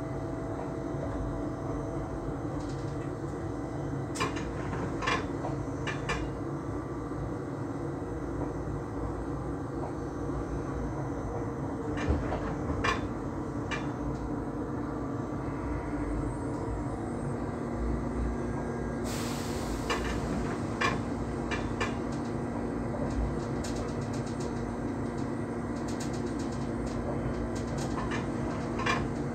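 Train running along the track, heard from inside the driver's cab: a steady rumble and hum with scattered sharp clicks and knocks as the wheels pass over rail joints and points. A brief hiss comes about twenty seconds in.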